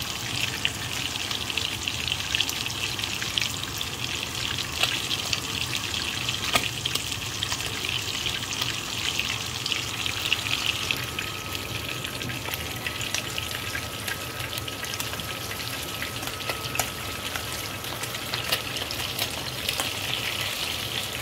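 Whole sardines shallow-frying in oil in a non-stick frying pan: steady sizzling, peppered with small crackles and pops of spitting oil. The oil is still sizzling, which by the cook's own rule means the fish are not yet done.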